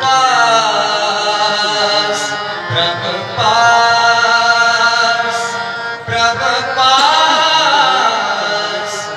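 Sikh kirtan: a group of male singers chanting a hymn together in long, held phrases, with short breaks about three and six seconds in.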